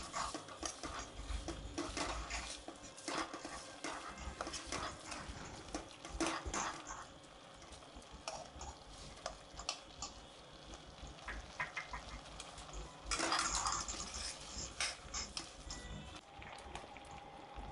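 Steel spoon scraping and clinking against a stainless-steel kadai while stirring and mashing soft cooked pumpkin with sugar, in irregular clicks and scrapes, with a louder scraping spell about thirteen seconds in.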